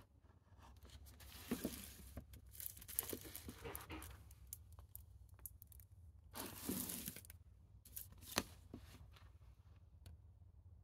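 Plastic Blu-ray cases in clear plastic protectors being slid off a shelf and handled: bursts of scraping and crinkling plastic about a second in and again past six seconds, with a sharp click near eight seconds, over a faint low hum.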